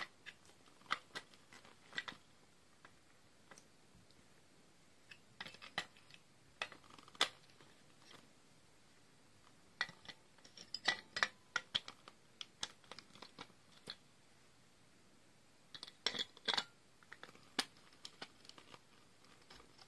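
Batteries being fitted into Furby battery compartments: faint, irregular small plastic clicks and scrapes in several short clusters.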